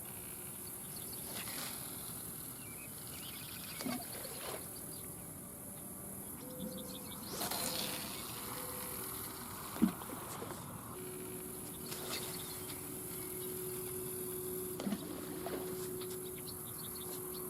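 Faint outdoor ambience dominated by a steady, high-pitched insect drone, with a few short soft knocks and, in the second half, a faint low steady hum.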